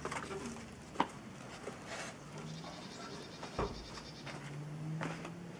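A metal car radiator being handled and stood in place: a sharp knock about a second in, then a few softer knocks and a dull thump. Twice in between there is a faint, low, drawn-out tone.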